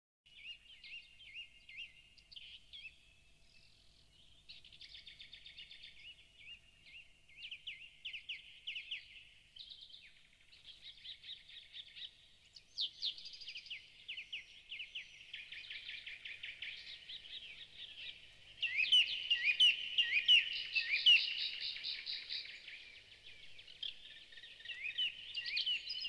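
Recorded songbird chorus: rapid trills and chirps in changing phrases, one after another, louder from about two-thirds of the way through.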